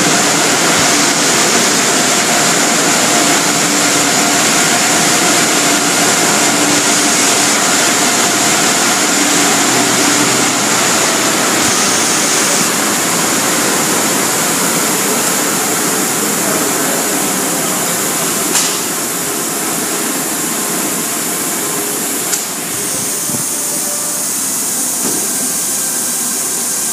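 Automatic car wash machinery running with a loud, steady rushing hiss, with a faint motor hum underneath.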